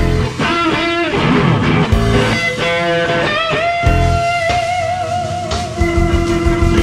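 Electric guitar lead line played with string bends, then a long held note with vibrato from about four seconds in, settling onto a lower held note near the end.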